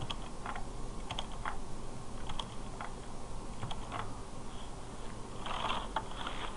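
Computer keyboard being typed on, a few scattered key clicks at a time as an address is entered, with a short burst of noise near the end.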